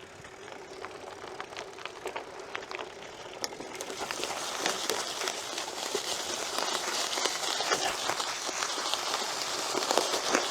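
BMX bike tyres rolling over a dirt trail strewn with leaves and twigs, a steady crackling crunch with many small clicks that gets louder about four seconds in.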